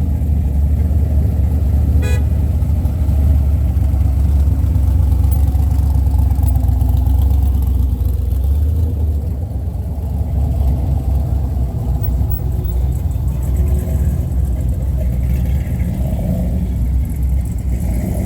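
Car engine running with a steady low rumble, with a brief click about two seconds in.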